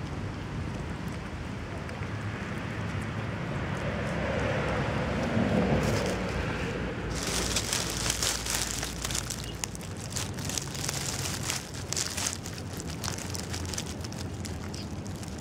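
A steady low outdoor rumble that swells about five seconds in. From about seven seconds in, dry fallen chestnut leaves crackle and rustle in many small crisp clicks.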